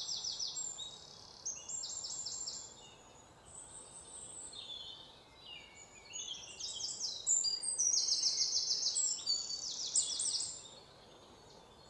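Small birds chirping: quick runs of short, high, falling notes in repeated bursts, busiest in the second half, over a faint outdoor hiss.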